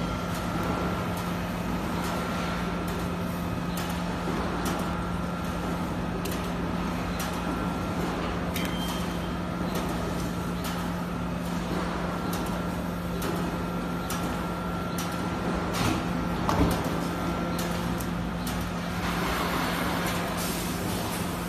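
Melamine short-cycle hot press line running: a steady machine hum with a thin steady high whine over it. Scattered clicks and knocks from boards being handled, with a louder knock about sixteen seconds in.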